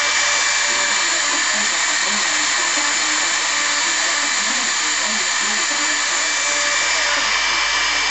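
HobbyCNC router's spindle running at 18,000 rpm with a 20-degree V-bit milling wood: a steady, loud high-pitched whine over the hiss of cutting.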